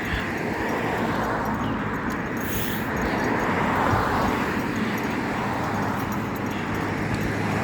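A car passing on the road, its tyre noise swelling to a peak about four seconds in and then fading.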